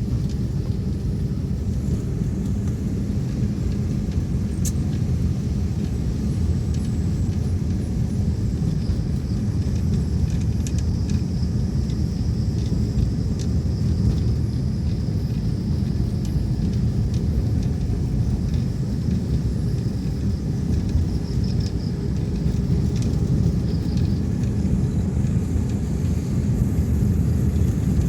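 Steady low rumble of a car driving on a road, engine and tyre noise heard from inside the cabin. A faint high steady whine sits over it through the middle.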